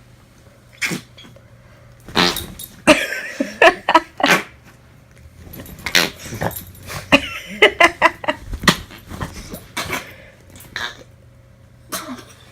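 Flarp noise putty being pressed to make a string of short, irregular fart noises, with a dog's noises among them.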